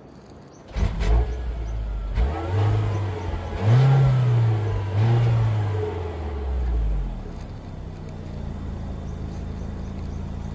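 Peugeot 3008 Hybrid's 1.6-litre turbocharged four-cylinder petrol engine firing up suddenly about a second in, heard from behind the car. It is revved three times, pitch rising and falling with each, then settles to a steady idle for the last few seconds.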